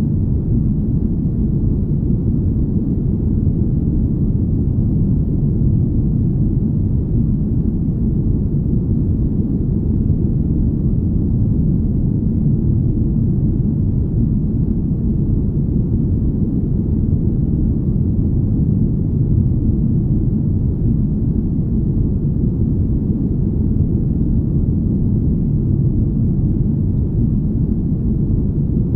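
A steady, deep, smooth rumble of noise, all bass with almost nothing high, unchanging throughout: a sleep ambience meant as a spaceship's hum.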